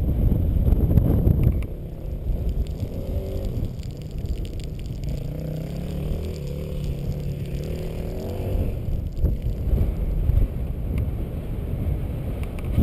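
Dirt bike engine running while the bike stands still: louder for the first second and a half, then idling with a low, slightly wavering hum.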